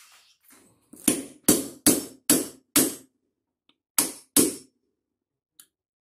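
Hammer blows on metal driving a new bearing into the hub of an automatic washing machine drum: five sharp strikes in quick succession, a pause, then two more.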